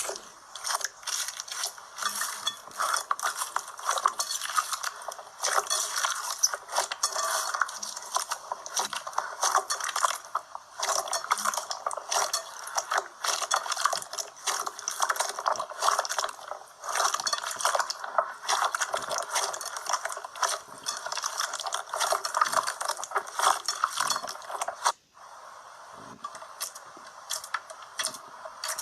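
Slime being squeezed and kneaded by hand, with dense, irregular crackling and popping clicks. About 25 seconds in it cuts off suddenly to a quieter, steadier sound.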